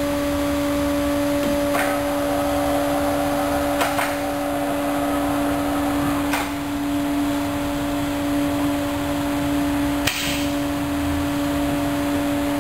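Vacuum glass lifter's pump running with a steady hum, broken by several short hisses of air from its valves. About ten seconds in comes a louder, sharper hiss.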